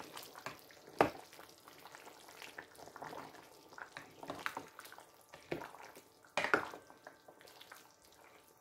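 A plastic slotted spoon stirring a thick meat stew in a stainless steel pot, with soft stirring sounds and several irregular knocks and scrapes of the spoon against the pot. The loudest knocks come about a second in and about six and a half seconds in.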